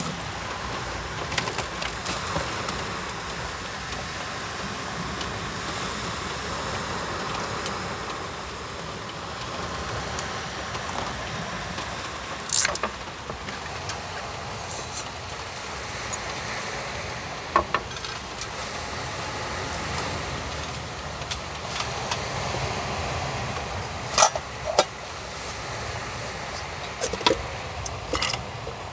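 Steady rain noise, with a few sharp metallic clinks and knocks as a small camping pot and gas canister are handled and packed away, most of them in the second half.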